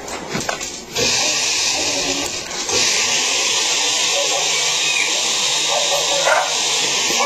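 Kitchen blender motor switched on about a second in and running steadily. It gets louder a moment later.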